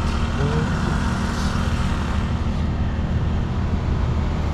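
Small portable generator running steadily, a low engine hum.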